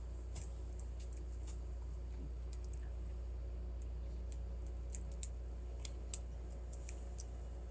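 Faint, scattered metallic clicks of a medium hook pick working the pins of a small lock held under tension, with one slightly sharper click about six seconds in, over a steady low hum.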